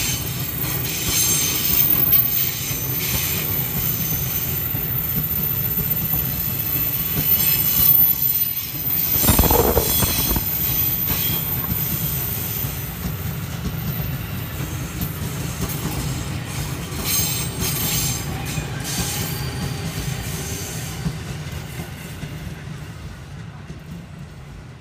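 A train passes at close range, its wheels squealing against the rails over a steady rumble and clatter of wheels on track. There is a brief louder surge about nine seconds in, and the sound fades away near the end.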